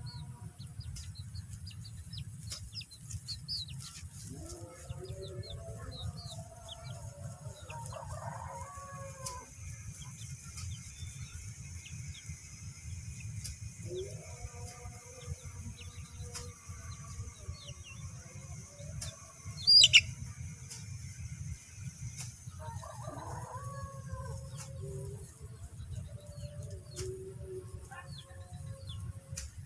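Chickens calling in three long, pitched bouts, with small birds chirping throughout. One loud, sharp chirp comes about twenty seconds in, over a steady low rumble.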